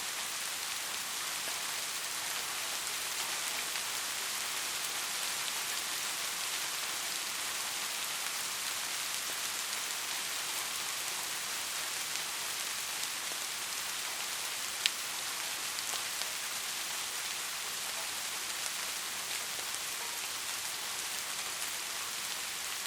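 Soft rain falling steadily in an even hiss, with one sharp drop tick about two-thirds of the way through.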